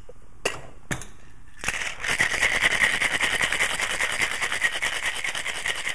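Ice rattling hard inside a Boston shaker (metal tin sealed over a mixing glass) as a cocktail is shaken: a fast, steady rattle that starts about two seconds in. Before it, a couple of knocks as the tin is fitted onto the glass.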